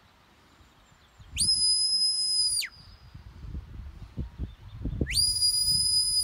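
Sheepdog handler's whistle signalling the working dog: two long, high, steady whistles a few seconds apart, each sliding sharply up at the start and dropping away at the end.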